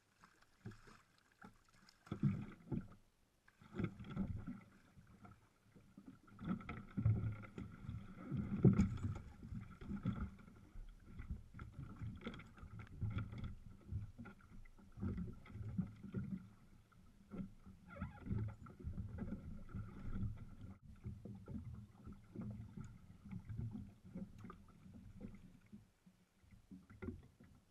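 Faint water sloshing and knocking against the hull of a Yamaha WaveBlaster jet ski as it sits afloat and rocks while the rider climbs aboard, in irregular low thumps and splashes.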